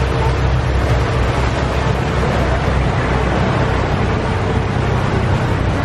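Steady low drone of a sightseeing boat's engines under the rushing hiss of its churning wake and passing air.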